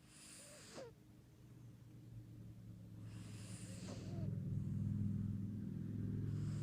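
Tortoiseshell-tabby cat snoring in her sleep: a raspy, wheezy breath about every three seconds, over a low rattling drone that grows louder in the second half.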